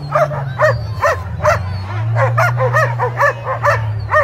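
Sled dogs in harness barking and yipping over and over, about three sharp barks a second, full of energy and eager to run.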